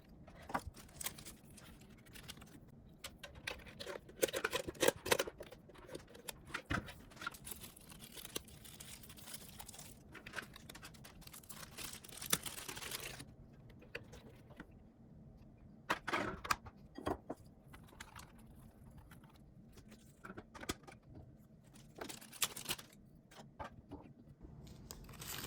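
Plastic pet water fountain parts being handled and fitted together: scattered clicks, taps and clatter, with a stretch of rustling about halfway through.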